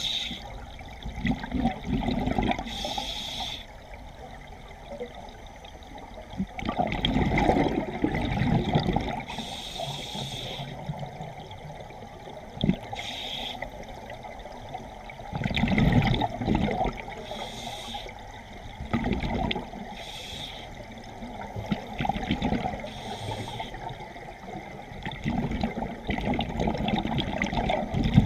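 Scuba regulator breathing underwater: a short hiss on each inhale, then a longer rumbling gush of exhaled bubbles, repeating every few seconds.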